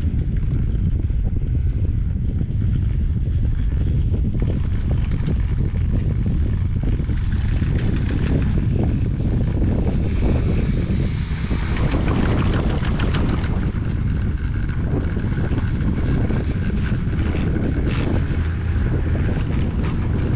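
Wind buffeting the microphone and a steady rumble as a Leitner high-speed quad chairlift chair rides up the haul rope. About halfway through, the chair passes under a lift tower and the rope running over the tower's sheave wheels adds a rapid clicking rattle for a few seconds.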